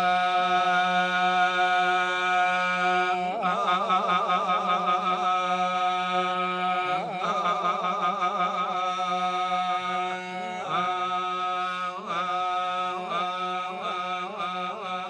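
Traditional ceremonial music: a continuous melody of held notes with wavering, ornamented turns over a steady low drone.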